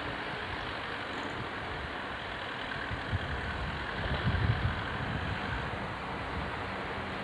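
Farm tractor's diesel engine running as it tows a loaded sand trailer away, under a steady hiss, with a few louder low thumps about four seconds in.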